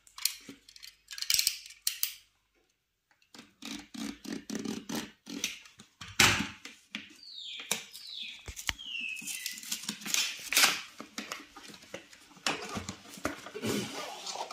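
Camera packaging being opened by hand: cardboard and plastic rustling, scraping and sliding, with many small clicks and knocks and a short pause about two seconds in.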